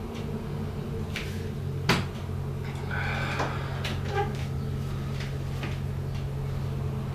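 A drinking glass set down on a table with one sharp knock about two seconds in. A chair then scrapes and creaks as someone gets up from the table, over a steady low hum.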